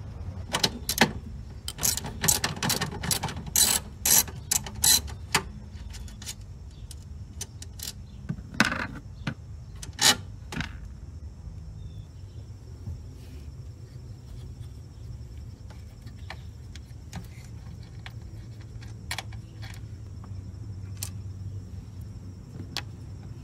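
Socket ratchet clicking in short runs as terminal nuts are undone, along with separate clicks and knocks of tools and parts. The clicks come thick over the first five seconds, then grow sparse.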